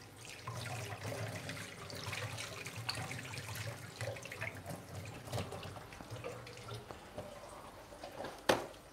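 Kitchen tap running as hands are washed under it, the water easing off about seven seconds in. A single sharp knock near the end.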